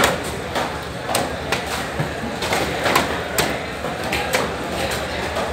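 Knife chopping through a large fish on a wooden block: a string of sharp, irregular knocks, about one or two a second, over the steady din of a busy fish market.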